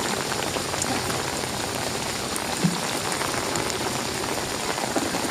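Steady heavy rain falling, an even hiss of drops, with one short low thump about halfway through.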